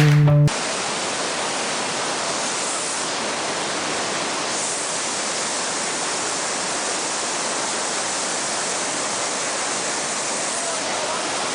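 Flash-flood water pouring over a waterfall: a steady, heavy rush of water that does not let up.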